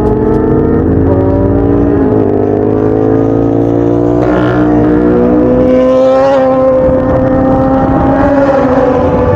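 Yamaha R1 inline-four sport-bike engine pulling hard under acceleration, its pitch climbing. About two seconds in the pitch drops with an upshift, then it climbs steadily again and eases off near the end.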